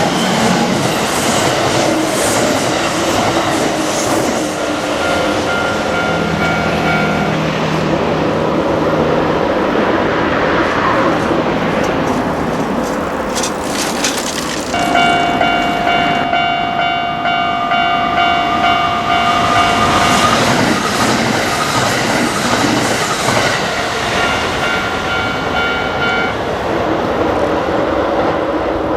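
Kintetsu Osaka Line electric train running past at speed, wheels clattering over the rail joints. A steady pitched tone with overtones sounds for about five seconds in the middle, over the running noise.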